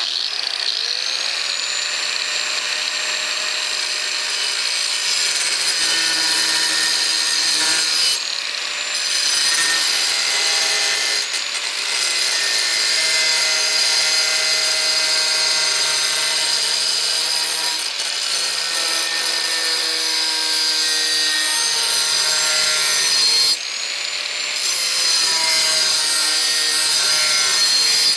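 Angle grinder with a Graff diamond sheet-metal cutting disc cutting through rusted sheet steel: a steady high whine whose pitch shifts as the disc bites. The motor spins up at the start, and near the end it briefly eases off and spins back up.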